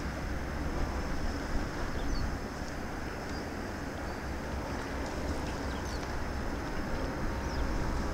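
Wind rumbling on the microphone over a steady outdoor wash of noise at the seashore, with a few faint high chirps.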